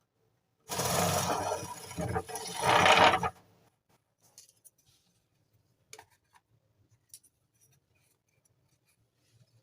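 A loud rubbing noise, with no motor tone, lasting about two and a half seconds and loudest near its end, followed by a few faint clicks and taps.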